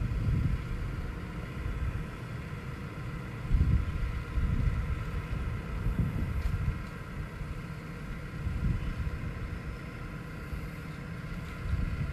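Irregular low rumbling gusts, typical of wind buffeting an outdoor microphone, over a steady mechanical hum.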